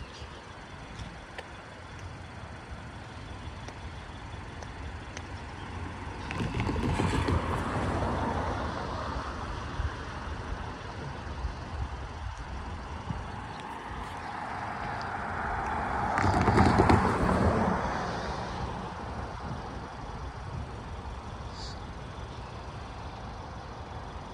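Motor vehicles passing by: a steady low rumble that swells twice, once about six seconds in and louder about sixteen seconds in, each fading over a few seconds.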